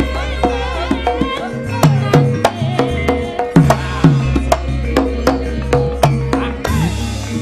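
Javanese gamelan music driven by quick kendang drum strokes, the low ones bending down in pitch, over sustained low gong-like notes. A female sinden sings through a microphone in the first second or so.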